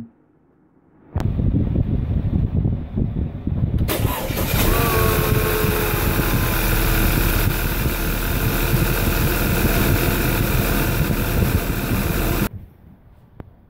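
An Audi 2.0 TFSI turbocharged four-cylinder starting for the first time after a turbocharger replacement. A low rumble begins about a second in, a louder whirring hiss joins at about four seconds as it runs steadily, and the sound cuts off suddenly near the end.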